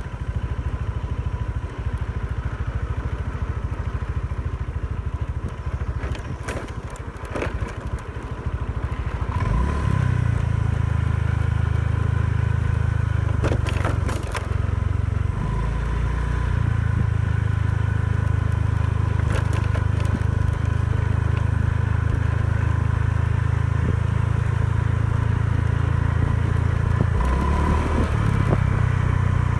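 Riding on a scooter: wind rumble on the microphone and the scooter's engine humming. After about nine seconds the engine hum becomes louder and steadier, and a few sharp knocks come around seven and fourteen seconds in.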